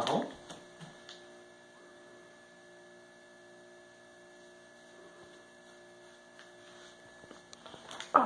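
Steady electrical hum with a few faint held tones in a quiet room. A sudden loud sound breaks in right at the end.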